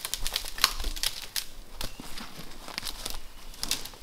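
Dry twigs and forest-floor debris crackling, snapping and rustling as the ground is cleared by hand, in irregular sharp clicks.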